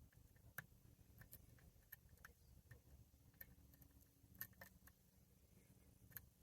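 Faint, scattered light clicks and ticks at irregular intervals: a monkey paw lock pick working the pin stack of a NU-SET padlock's Euro cylinder under light tension.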